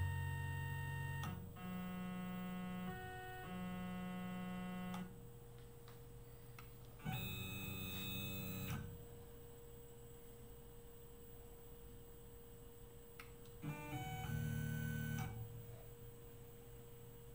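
Tormach CNC mill's stepper motors whining at a steady pitch as the axes are jogged into position: about five separate moves of a second or two each, starting and stopping abruptly, over a constant electrical hum.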